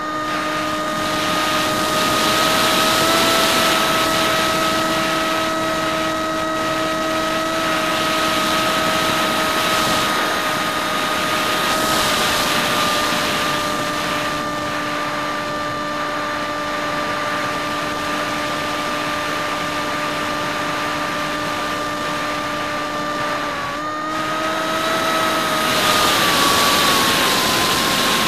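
Hymax 2700kv brushless inrunner motor spinning a 6x4 APC propeller, a steady whine, heard from the onboard camera with wind rushing past it in flight. The wind rises and falls a few times, and near the end the whine drops in pitch as the throttle comes back.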